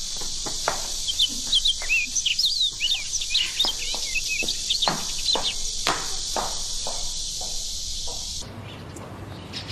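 Garden ambience of small birds chirping in quick, short calls over a steady insect drone, with a few dull knocks in between. The insect drone stops suddenly about eight and a half seconds in, giving way to a quieter, lower background.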